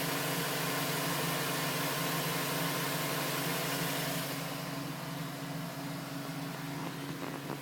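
2010 GMC Sierra's engine idling steadily when warm, with no tapping. The cold-start tap, which the owner suspects is piston slap, has stopped, and this is how the engine should sound.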